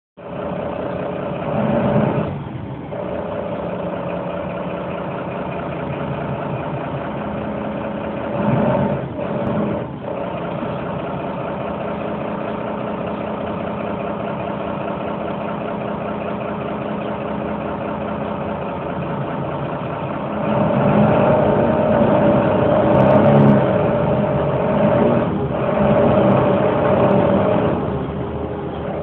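Engine and road noise of a moving vehicle heard from inside it, a steady hum that grows louder for several seconds in the last third.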